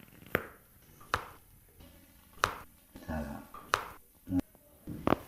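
Joints cracking during a chiropractic spinal twist adjustment: about five sharp pops, roughly a second apart, with a brief low murmur near the middle.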